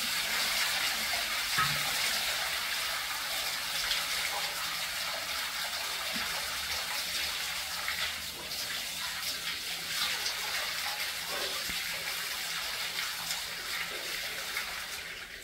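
Water poured from a metal pot over a stone idol, splashing steadily onto the idol and its stone pedestal; the rush of water starts suddenly and fades away near the end.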